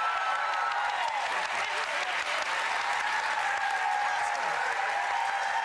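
Studio audience applauding steadily, with voices over it.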